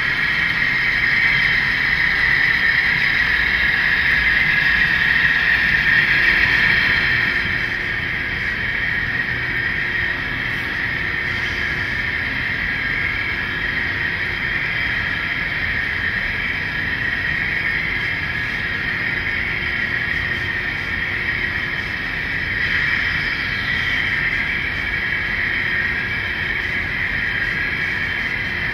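Model train running along the track: a steady high whine from the locomotives' electric motors and gearing over a low rolling rumble of wheels on rail. It is a little louder for the first several seconds, then settles.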